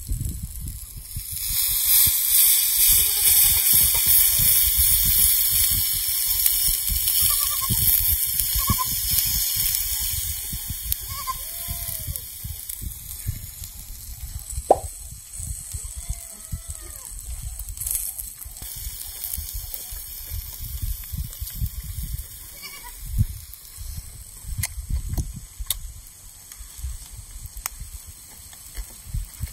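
Outdoor farm-field ambience: a loud steady hiss that fades out after about twelve seconds, uneven low rumble, and a few faint, short animal calls.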